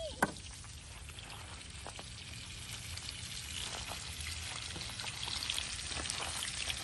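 Steak and asparagus sizzling in a frying pan, a crackling hiss that grows louder over the second half. A single sharp click comes just after the start.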